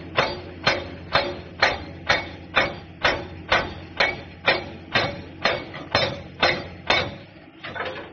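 Sparkle S400D hydraulic breaker with a 175 mm chisel, mounted on an excavator, hammering rock at a steady rate of about two blows a second over a low steady hum. The blows stop near the end.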